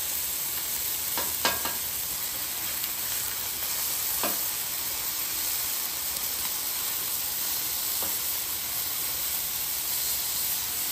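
Chicken thighs sizzling in a steady hiss on a hot flat-top griddle as they are flipped with a metal spatula. A few sharp clicks of the spatula on the griddle plate come about a second in and again around four seconds.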